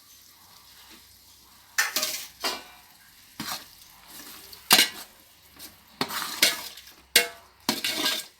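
A spoon stirring and scraping against a cooking pot in about ten short, irregular strokes as yogurt is mixed into the biryani masala.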